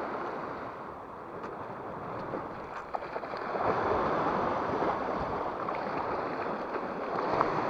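Sea waves washing over shoreline rocks, swelling louder about halfway through, with a few faint clicks.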